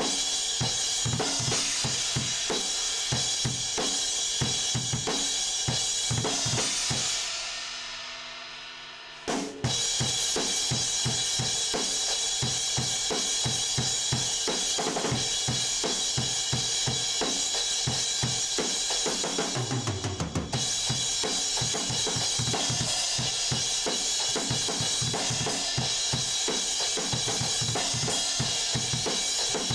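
Drum kit played fast and hard: rapid kick and snare hits under a constant wash of cymbals. The sound fades away about seven seconds in, and the kit crashes back in just after nine seconds.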